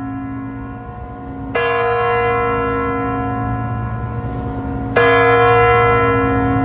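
A large bell tolling, struck twice, about a second and a half in and again some three and a half seconds later. Each stroke rings on long, over a steady low rumble.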